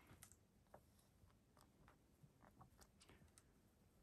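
Near silence, with faint rustles and a few soft clicks of a thick book's paper pages being handled and turned.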